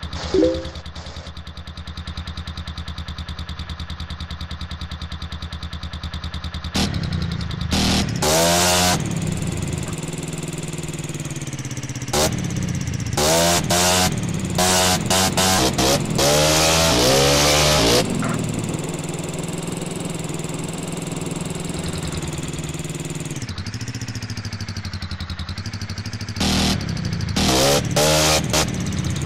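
Yamaha Fino scooter's single-cylinder four-stroke engine idling steadily and being revved by throttle blips: a couple of revs about seven seconds in, a longer run of repeated revs in the middle, and a few more near the end.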